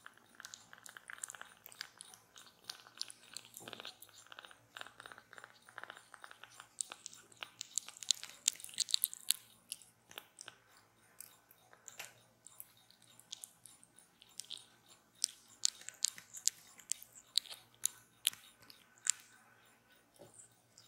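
Kitten suckling milk from a nursing bottle's rubber teat: rapid, irregular wet clicks and smacks of sucking, busiest around the middle and again toward the end.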